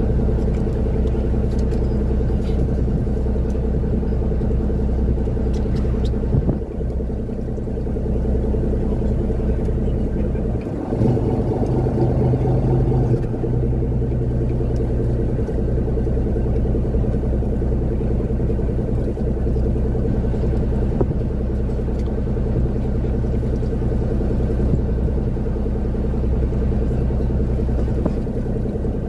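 Engine running steadily, with a shift in its note about eleven seconds in.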